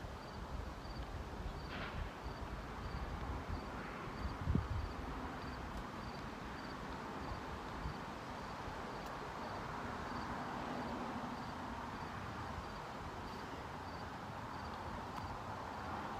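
An insect chirping high and regularly, about three chirps a second, over a steady outdoor hiss, with one dull thump about four and a half seconds in.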